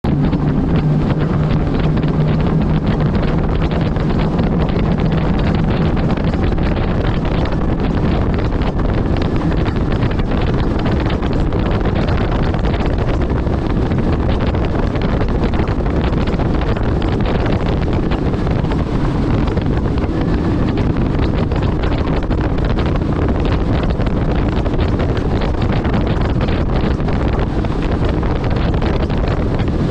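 Heavy wind buffeting the microphone over the drone of a Mercury Racing 300R outboard as the boat runs at speed across the water. A low engine note stands out in the first few seconds, then is buried under the wind as the boat speeds up to around 50 mph.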